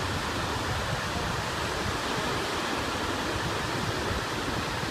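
Steady rush of surf breaking on the beach, mixed with wind, at an even level throughout.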